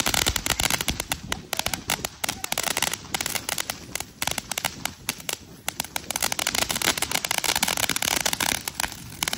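Fireworks crackling: a dense, rapid run of small sharp pops over a hiss, with brief lulls about four and five and a half seconds in.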